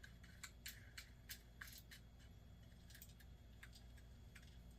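Faint light clicks and ticks of small metal reel parts being handled as the star drag is fitted onto the shaft of an Ambassadeur 5501C3 baitcasting reel, about a dozen in quick succession in the first two seconds, then a few more about three seconds in.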